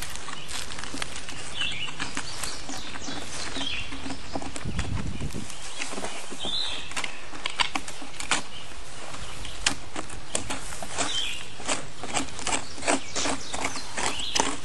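A hand tool scraping the weathered surface of an old pine log in short, irregular strokes that come faster near the end.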